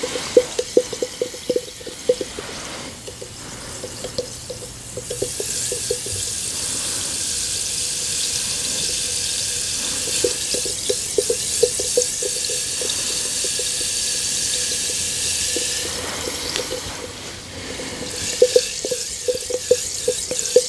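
Water sounds: small bubbly pops and drips, then about ten seconds of steady rushing hiss, then more pops near the end.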